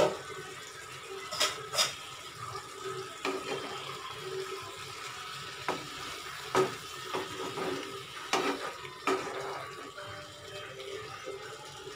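A black spatula stirring and scraping a steaming potato, brinjal and spinach curry in a non-stick kadai, with about eight sharp knocks against the pan spread through, over a steady hiss from the pan cooking on low flame.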